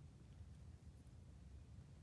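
Near silence, with a faint steady low rumble.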